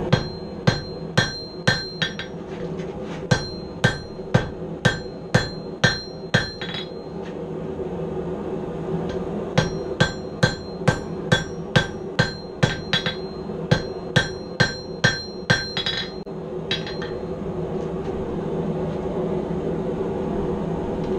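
Hand hammer blows on red-hot steel on an anvil, coming in three runs with short pauses, about two blows a second, each with a brief high ring. The steel is being drawn out to a point. A steady hum runs underneath.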